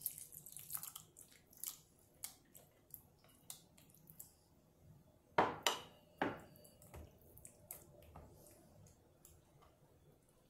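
Plastic spatula scraping and tapping set jelly pieces off a plate into a plastic tub of custard, with light clicks and scrapes and three sharper knocks a little past halfway.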